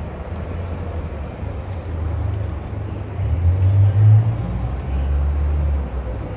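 Low rumble of city traffic, like a bus or truck engine close by. It swells about three seconds in and eases off near the end.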